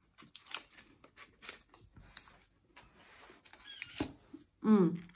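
A person biting and chewing a small buttery-crust cherry fruit tart: many small irregular crunches and wet mouth clicks. Near the end comes a short, loud voiced sound with a falling pitch.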